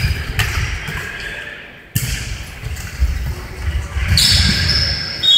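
Echoing sports-hall sound of indoor futsal play: irregular low thuds of the ball and running feet on the wooden floor. Near the end a high steady whistle starts.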